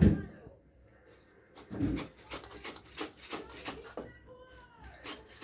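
Hilsa fish being cut and cleaned against a bonti blade: a heavy thump at the start and another about two seconds in, then a quick run of sharp scraping clicks. Just after four seconds in, an animal gives a short falling whine.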